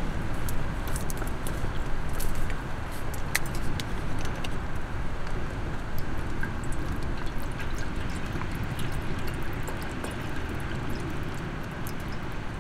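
Water poured from a plastic bottle into a stainless steel sierra cup, over a steady low rumble.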